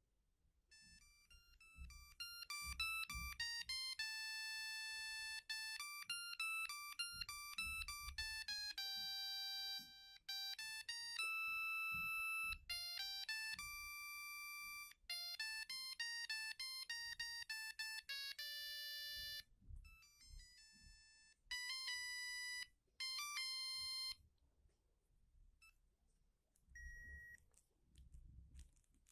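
Siemens A50 mobile phone playing ringtone melodies through its small speaker, one buzzy note at a time. The tune breaks off about 19 seconds in and a shorter phrase follows, then a single short beep near the end.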